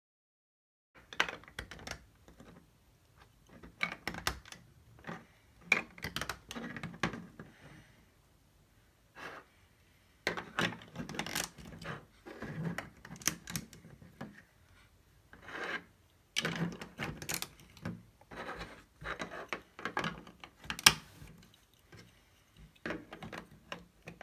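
Plastic LEGO Duplo bricks clicking and knocking as they are picked up, set down on a tabletop and pressed together, in irregular clusters with short pauses. The sharpest, loudest click comes near the end.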